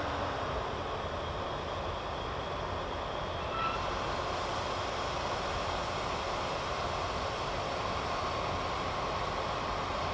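Heavy farm machinery running steadily, with a brief short tone about three and a half seconds in.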